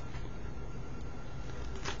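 Faint rustling and handling of a comic book's paper pages held up to the microphone, with a couple of soft clicks, over a steady low hum.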